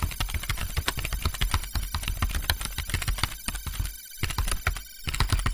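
Intro sound effect: a dense run of fast, irregular clicks like rapid typing over a low hum, with a thin high tone held above. The clicking pauses briefly about four seconds in.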